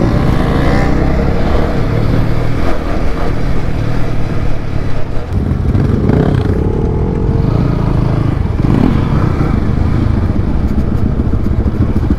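Motorcycle engines running as the bikes ride a rough dirt road, the nearest engine's pitch rising as it revs up near the start and again about halfway through.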